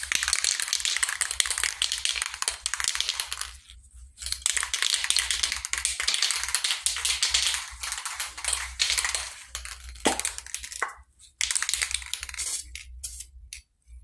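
Aerosol spray-paint can hissing in long bursts, with a brief break about four seconds in, then a few shorter spurts near the end.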